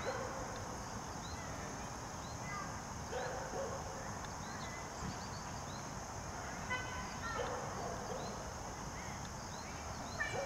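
Outdoor ambience: a steady high hiss under scattered short chirps, with two faint brief tones about three and seven and a half seconds in.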